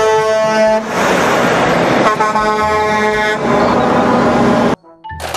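Semi-truck air horn blasting twice, a held chord of several steady tones, over the engine and tyre noise of passing trucks. The sound cuts off abruptly near the end.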